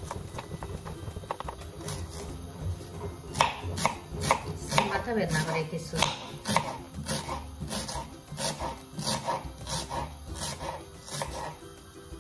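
Kitchen knife chopping potato and onion on a wooden chopping board: a run of sharp knocks, about two to three a second, starting about two seconds in.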